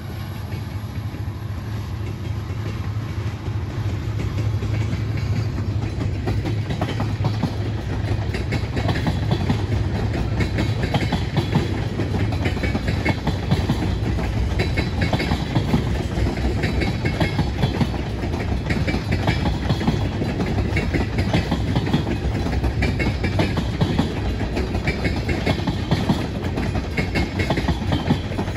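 Wheeling & Lake Erie freight train passing: the diesel locomotive's low engine hum, then a few seconds in the wheels start clicking and clacking over the rail joints as the cars roll by, louder and steady from then on.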